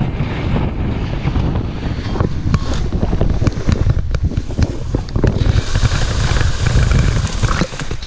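Strong wind buffeting the microphone of a paraglider pilot's camera as the glider comes in low. Rustling and knocking of grass and branches grows from about five seconds in as the pilot ploughs into tall grass and bushes.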